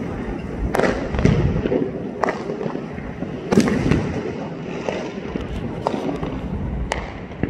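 Fireworks going off one after another: sharp bangs over a continuous crackling rumble of further bursts, the loudest bang about three and a half seconds in.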